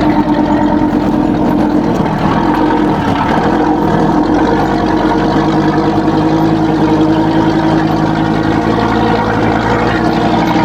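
Mercedes-Benz 1519 truck's diesel engine running with a steady, deep rumble.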